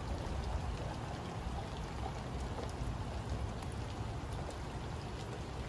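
Rain falling on the surface of a saltwater river: a steady hiss peppered with many small drop ticks, over a low steady rumble.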